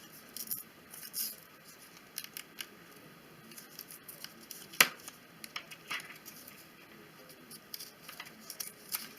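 Packaging on a new Lightning cable being picked at and pulled apart by hand: scattered light crinkles and small plastic clicks, with one sharp click about five seconds in.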